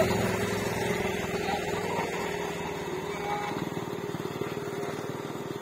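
Motorcycle engine running with a steady hum, its sound fading gradually as it moves away.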